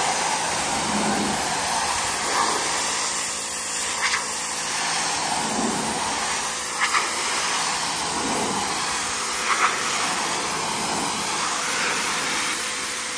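Greenworks Pro 3000 psi electric pressure washer spraying a high-pressure jet of water onto a surface: a steady hiss of spray over the machine's running motor, with a few brief louder blips.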